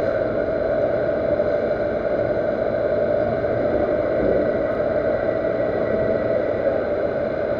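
Steady machine hum and whir with a constant whine over it, unchanging throughout.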